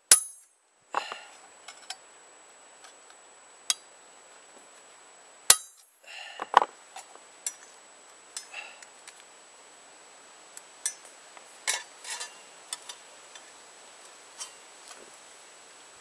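Hammer driving a cold chisel through metal to cut out a knife blade blank: two sharp ringing blows, one at the start and one about five and a half seconds in, with lighter knocks and clinks between them.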